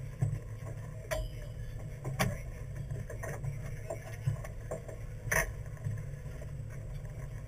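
Fishing party boat's engine running with a steady low rumble, with three sharp knocks on deck about one, two and five and a half seconds in.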